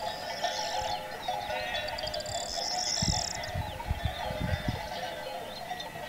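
Birds calling in high chirps and short trills over a flock of sheep bleating, with a dense steady layer of ringing tones underneath.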